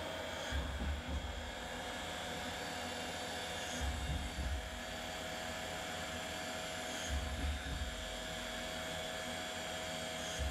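Haas VF-2 vertical machining center's spindle whining steadily as an end mill cuts an aluminum part under flood coolant, with a low thump about every three seconds.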